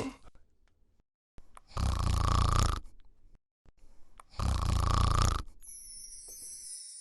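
A person snoring twice, each snore about a second long, the two about two and a half seconds apart. Near the end comes a fainter high, hissing shimmer.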